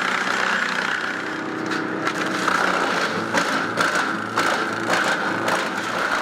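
Timberwolf TW 190TFTR tracked wood chipper running with a steady whine. From about two and a half seconds in, repeated sharp cracks and clatter come roughly two a second.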